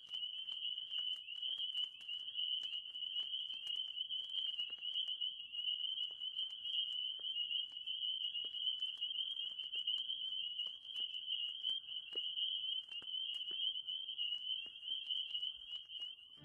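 Crickets trilling without a break in a high, even tone, with faint scattered ticks.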